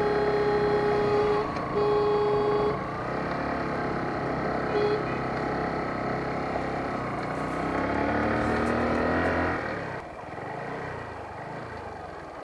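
Motorcycle riding uphill with engine and wind noise, while a vehicle horn sounds twice, the first honk longer than the second, with a brief third toot about five seconds in. The engine note rises around eight seconds in, then drops off near ten seconds as the bike slows.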